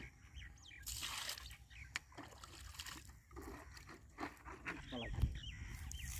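Pond water sloshing and splashing lightly around a submerged clay pot fish trap as a fish moves in it, with a short burst of splashing about a second in.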